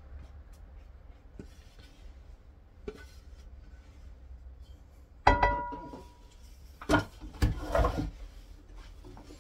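Kitchen dishes and utensils being handled. About five seconds in, a dish is set down with a ringing clang, followed by a few more knocks and clatter around seven to eight seconds.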